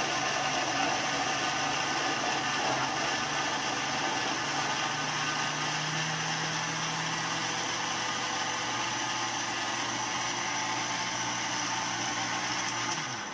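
Electric mixer grinder (mixie) motor running steadily, blending ground chickpeas into hummus as tahini is poured in. Its pitch drops as it winds down and stops near the end.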